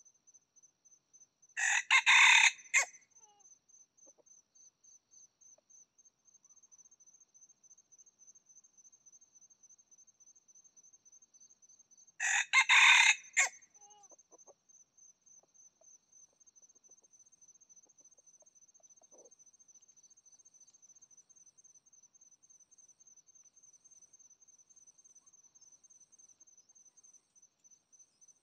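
Red junglefowl rooster crowing twice, about ten seconds apart, each a short clipped crow. A steady, rapidly pulsing high insect trill runs underneath.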